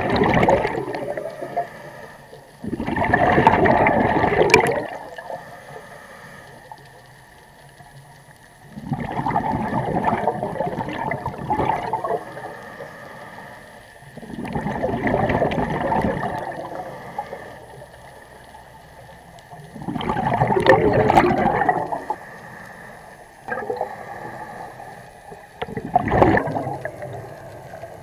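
Scuba regulator exhaust bubbles from a diver's exhaled breaths underwater: a burst of gurgling bubbles every few seconds, each lasting one to three seconds, with quieter stretches between while the diver inhales.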